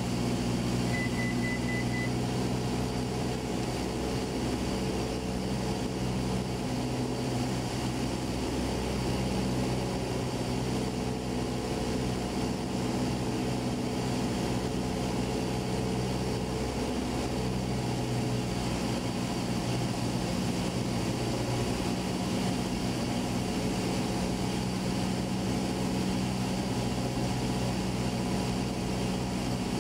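Single-engine piston airplane's engine and propeller droning steadily as heard inside the cabin, with a slight shift in pitch partway through.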